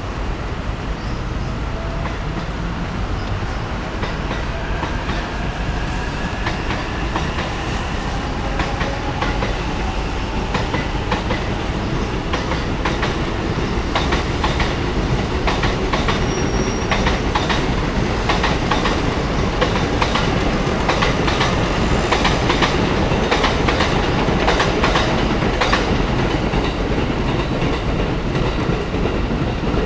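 Train running past on nearby tracks: a steady rumble with a faint whine sliding in pitch, then wheels clacking over rail joints through the second half as it grows a little louder.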